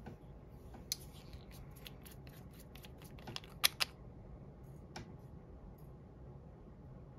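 A few small sharp clicks and taps of small hard objects being handled, with a close pair of louder clicks near the middle, over a low steady hum.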